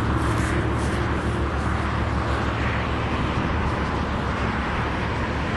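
Motor vehicle running steadily: a constant low engine hum with road noise.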